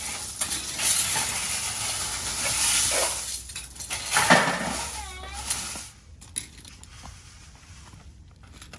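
Gravel rattling, scraping and clinking for about six seconds, as loose stone is moved or poured, then dying away. A brief high-pitched squeal comes about five seconds in.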